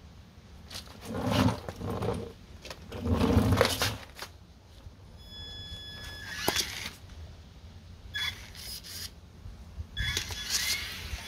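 Small electric RC car's motor whining in high, steady tones that rise and fall as it is throttled and driven off toward the ramp, loudest near the end. Two loud rustling noises come in the first few seconds.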